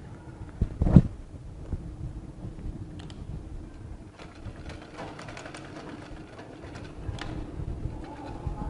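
Domestic sewing machine stitching a seam through cotton fabric, running steadily with a fine rapid ticking of the needle mechanism. A loud thump about a second in.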